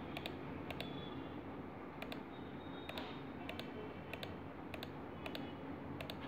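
Computer mouse button clicking about ten times at irregular intervals, many clicks a quick press-and-release pair, as the fill tool is applied spot by spot, over a faint steady hum.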